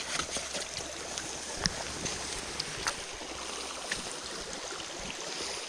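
Steady rushing of flowing creek water, with a few faint small clicks.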